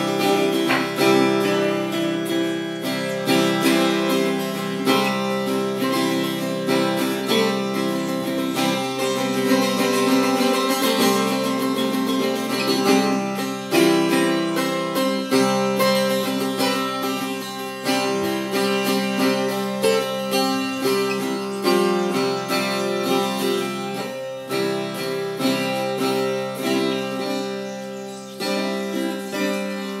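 Acoustic guitar music, plucked strings playing continuously.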